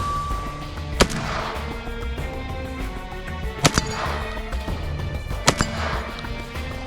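Three single gunshots from a drum-fed semi-automatic shotgun, about a second in, near four seconds and past five seconds, each trailing off in an echo. Background music runs underneath.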